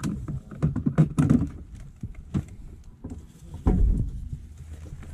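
Plastic clicks and knocks from hands working at a Fiat Fiorino's dismantled steering wheel, thickest in the first second and a half, with a heavy dull thump a little under four seconds in.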